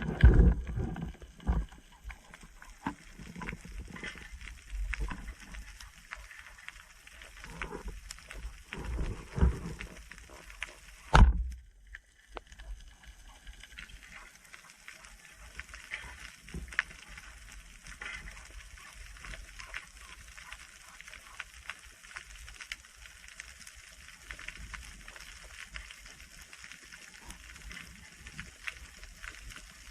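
Underwater sound on a freediving spearfishing dive: constant clicking and crackling, with low thuds through the first half and one loud sharp knock about eleven seconds in.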